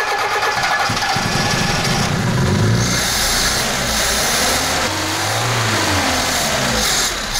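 VAZ-2121 Niva's four-cylinder engine turning over on the starter. Its sound changes about a second in, then rises and falls.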